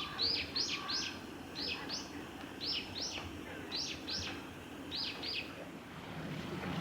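Common kingfisher calling: a series of short, shrill, high whistles, each sliding downward, given mostly in pairs about twice a second and stopping about five and a half seconds in.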